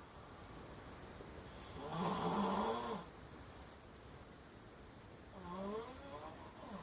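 A man snoring: a loud snore about two seconds in, lasting just over a second, and a fainter snore near the end whose pitch rises and falls.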